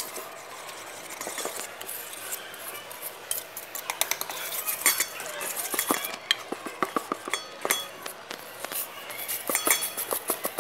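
A utensil stirring thick muffin batter by hand in a bowl, with repeated, irregular clinks and scrapes against the bowl's side.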